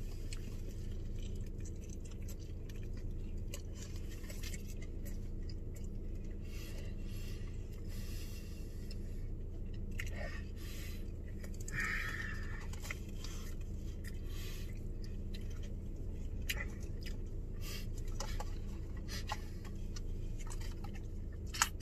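A man chewing a big mouthful of burrito, with soft wet chewing and small scattered clicks, over a steady low hum inside a car's cabin.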